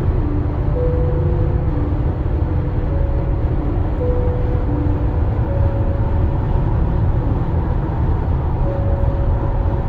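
Highway road noise inside the cabin of a 2022 Tesla Model X cruising on the interstate: a steady low rumble of tyres and wind, with no engine note from the electric drivetrain.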